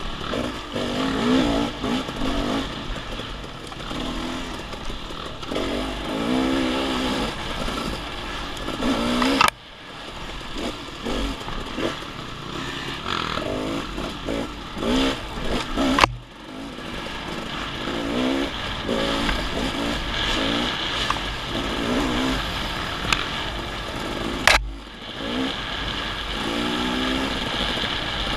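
Off-road dirt bike engine revving up and down repeatedly as the throttle is worked over a trail. The sound breaks off sharply three times.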